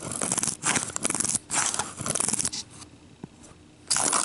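Nano Speed micro pull-back toy car pulled backward against the track, its pull-back motor whirring in several short scraping strokes over the first two and a half seconds, then another burst near the end as the car is wound again and let go.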